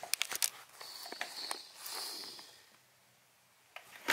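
A few quick clicks and taps, then a soft rustle that dies away to near quiet, as a barefoot person stands on a digital bathroom scale.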